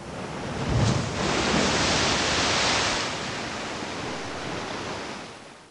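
Ocean wave breaking: a rush of surf that swells over the first second, holds, then eases off and fades out near the end.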